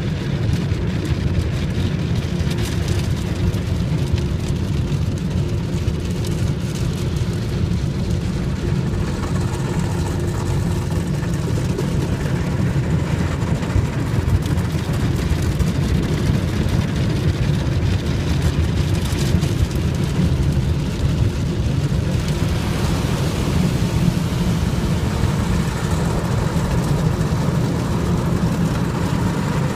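Automatic car wash machinery running: a steady low rumble, with a rushing hiss that grows louder about two-thirds of the way through.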